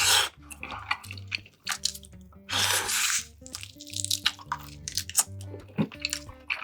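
Close-miked eating sounds: wet chewing, smacking and mouth clicks, with a louder rushing bite or slurp at the start and again about two and a half seconds in. Soft background music plays underneath.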